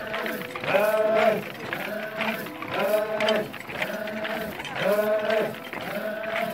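A group of men chanting a folk dance song in unison: a rising-and-falling phrase repeated about every two seconds, with a held note sounding between the phrases.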